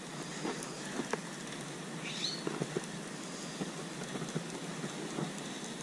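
Steady outdoor hiss with scattered light ticks and a brief high chirp about two seconds in.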